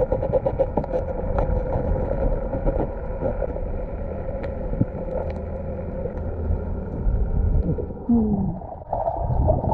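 Muffled underwater sound: a low rumble with a faint steady hum and scattered clicks and scrapes as a diver works an arm into a coral head.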